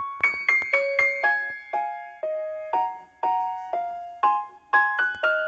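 Background piano music: a simple melody of single struck notes, about two a second, each fading after it sounds.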